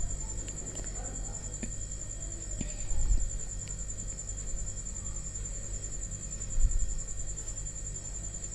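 Whole spices frying in mustard oil in a kadhai, a low sizzle of bubbling oil, over a steady high-pitched pulsing trill. There are a couple of soft knocks, about three seconds in and again near the end.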